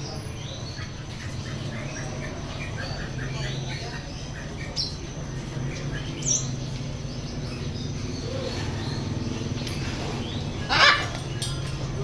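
Many small birds chirping over a steady low hum. A short, loud, harsh sound comes a little before the end.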